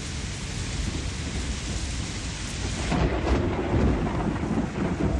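Steady rain hiss with thunder rumbling, the rumble swelling about three seconds in as the higher hiss thins out.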